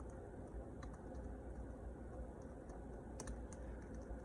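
Quiet room tone with a few faint, light clicks scattered through it.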